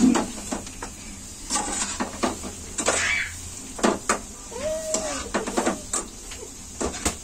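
Metal slotted spoon clinking and scraping against an aluminium kadhai while gulab jamun are turned in the frying oil: a string of short separate clinks and knocks.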